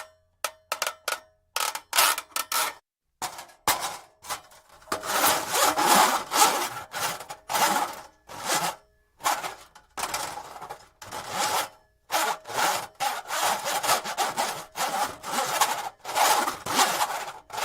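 Braided steel cable scraping and sliding in light, raspy strokes. Short separate strokes in the first few seconds, a longer stretch of near-continuous scraping from about five seconds in, then quick strokes about two a second.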